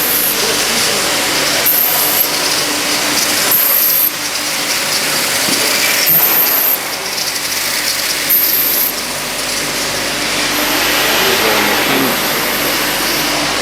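Metalworking machinery running on a factory floor: a steady loud din with several short spells of high-pitched hiss every couple of seconds, the last one longer.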